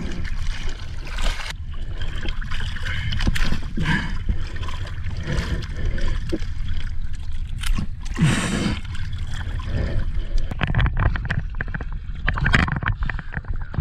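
Sea water sloshing and splashing against a boat's hull and a large sea turtle alongside it, over a steady low rumble. Sharper splashes come in quick clusters in the last few seconds.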